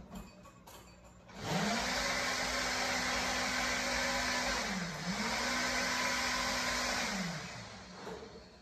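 A small electric motor whirs up about a second and a half in, runs at a steady pitch with a brief dip midway, then winds down near the end.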